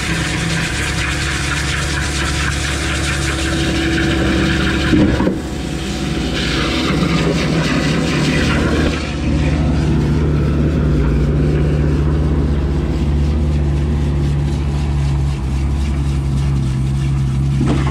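Concrete pump truck's diesel engine running steadily while water is hosed through the hopper and S tube during washout, with a hiss of spray that is strongest in the first half. A single clank about five seconds in.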